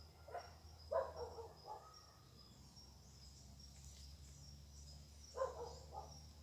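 Faint, distant dog barking in a few short bouts, about a second in and again near the end, over a steady high chirring of insects.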